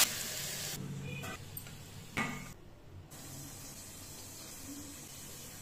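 Leaf-wrapped egg paturi parcels sizzling on a hot tawa, cut off within the first second. Then a few light clicks and one sharper knock about two seconds in, over a low steady background.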